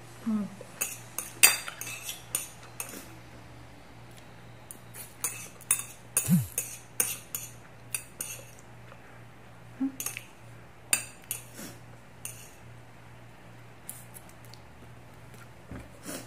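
Metal chopsticks clinking and tapping against ceramic plates in irregular clicks, loudest about one and a half seconds in and again around six seconds in.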